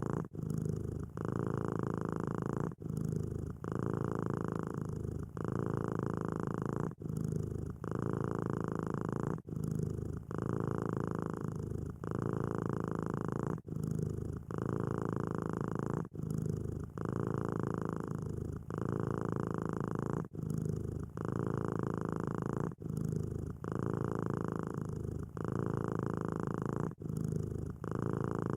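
Domestic cat purring steadily, the purr changing between each breath in and out, with a short break about every two seconds.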